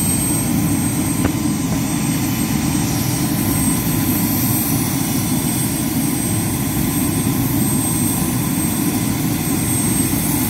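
Helicopter's turbine engine running on the ground, a steady rumble with a thin high whine held throughout.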